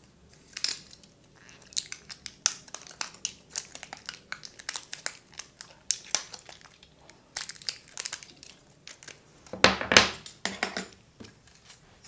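Plastic packaging of a pair of alkaline batteries being slit with a utility knife and peeled off by hand: irregular crinkling and crackling, with a louder burst of crackles near the end.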